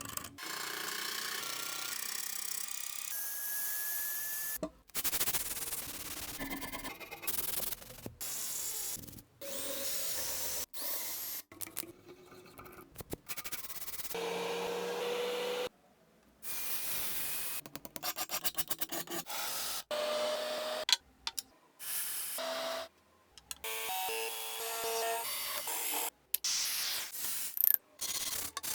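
Rubbing, sanding and scraping of abrasive tools on the metal of an old vise, in many short clips that cut in and out abruptly. Some clips carry a steady or rising motor whine from a power tool.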